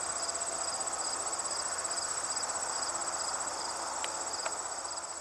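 Insects calling in a chorus, crickets among them: a continuous high trill with a second, pulsing chirp beneath it, plus a few faint ticks near the end.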